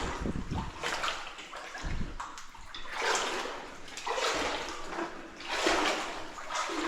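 A person wading through standing water, the water sloshing and splashing in surges about once a second with each stride.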